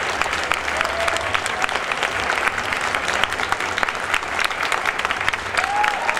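Audience applauding steadily, a dense crowd of handclaps.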